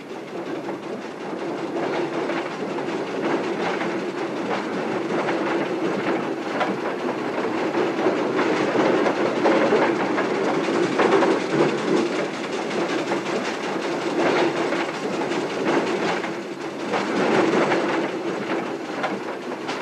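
Aveling & Porter steamroller on the move: the steam engine's steady running with continual rattling and clanking of its motion and gearing.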